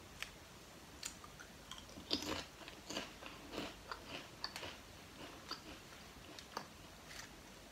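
Lay's potato chips being bitten and chewed: sharp, crisp crunches, thickest from about two to four seconds in, then thinning to scattered crackles.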